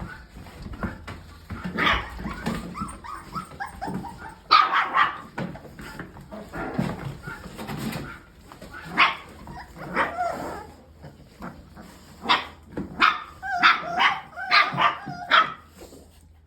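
Bully-breed puppies barking and yipping in short, high calls, with some whimpering; the calls come thick and fast in the last few seconds.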